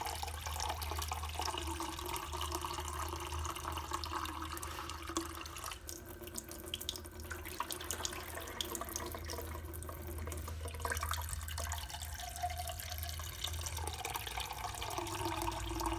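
Water being poured from a cup into the bowl of a plastic pet drinking fountain, a steady splashing pour that briefly thins twice.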